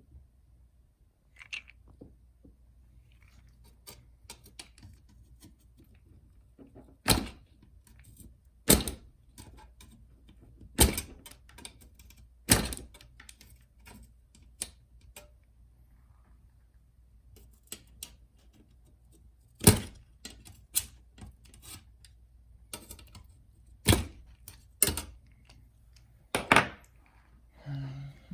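Small screwdriver and pliers prying rivets out of a MacBook Pro top case: a series of sharp, irregularly spaced clicks and snaps, about eight loud ones among fainter taps, as the rivets pop free.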